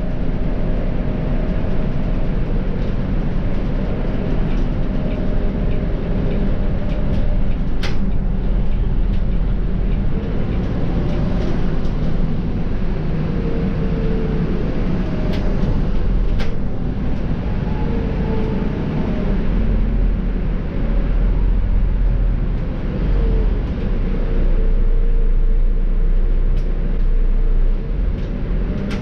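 Volvo B7R bus with a ZF EcoLife automatic gearbox driving along: a steady low diesel rumble with road noise. A faint whine rises and falls several times as the bus changes speed, and a few sharp clicks sound, one loudest about eight seconds in.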